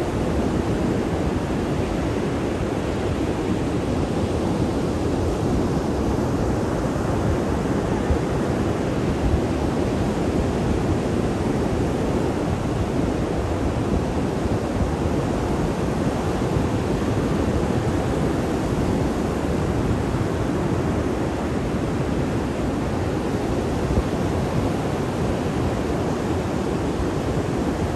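Ocean surf breaking on the beach, a steady rushing noise, with wind buffeting the microphone.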